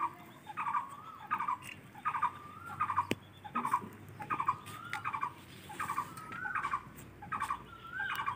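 An animal's short calls repeated steadily, about two a second, some ending in a short rising note. A single sharp tap about three seconds in.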